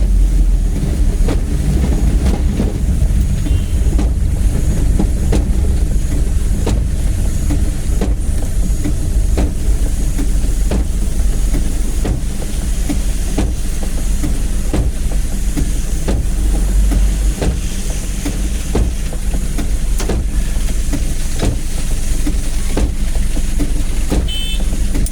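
Vehicle driving in heavy rain: a steady low engine and road rumble with a hiss of rain, and a short knock repeating evenly about every second and a half.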